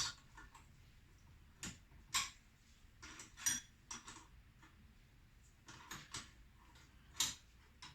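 Irregular metal clicks and clinks, about seven in all, of a spanner being fitted and turned on 13 mm nuts on the threaded rods of a spring press, tightening them down to compress a motorcycle rear shock spring.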